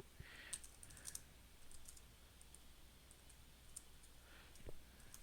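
Faint, scattered keystrokes on a computer keyboard as a terminal command is typed.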